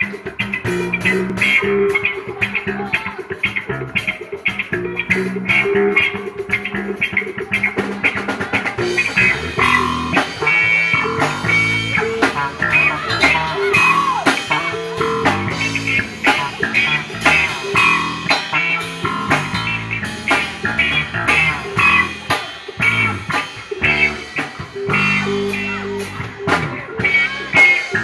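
Live band playing instrumental music during a sound check: guitar over bass and drum kit, getting fuller and brighter about eight seconds in.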